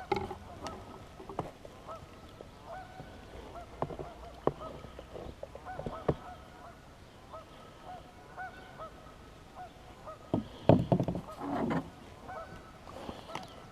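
A flock of geese honking repeatedly on the water, short calls one after another. About ten seconds in, a few loud knocks and rustles close by drown them out briefly.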